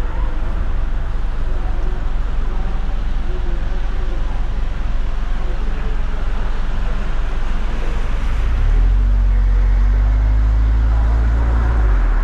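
Street traffic noise, with tyres hissing on wet asphalt and faint voices in the background. About nine seconds in, a nearby vehicle's engine rumble swells and holds for about three seconds, its pitch slowly rising.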